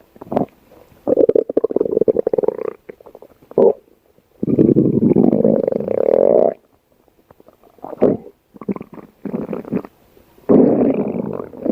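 Stomach growling: a run of gurgling rumbles. Three long ones of about two seconds each are separated by short gurgles and quiet gaps.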